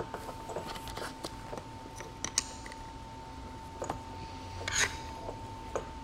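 Light, scattered metallic clicks and taps of a small adjustable wrench on the nut of a hydraulic joystick's control-cable fitting as it is tightened, with one slightly longer scrape about five seconds in. A faint steady hum sits underneath.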